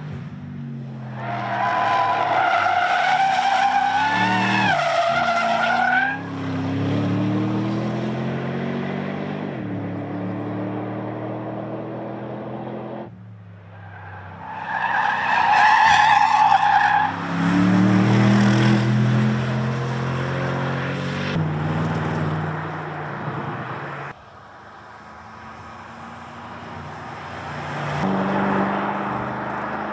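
Porsche Panamera driven hard: the engine revs climb and fall through the gears, and the tyres squeal through corners in two spells, near the start and about halfway through.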